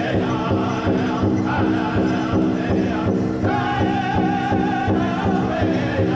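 Powwow drum group: several men singing a chant together over steady, even unison beats on a large hide-covered powwow drum struck with padded beaters.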